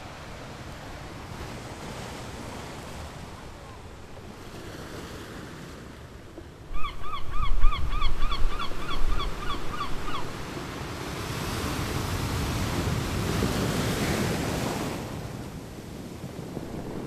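Ocean waves washing and surging, with a louder swell building and falling away in the second half. About a third of the way in, a bird calls in a quick run of short cries, about four a second, for some three seconds.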